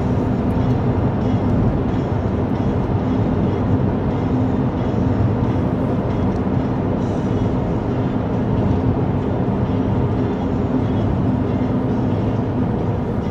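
Steady road noise of a car being driven at an even speed: engine and tyre drone with a faint steady hum.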